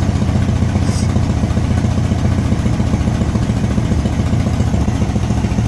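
1971 VW Beetle's air-cooled flat-four engine idling steadily, running continuously now that a new mechanical fuel pump has cured its fuel delivery problem.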